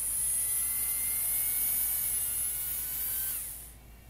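Small brushed DC motor, driven by Raspberry Pi PWM, running with a high whine and hiss, its pitch rising slowly as the duty cycle steps up. About three and a half seconds in, the whine drops in pitch and the motor winds down to a stop.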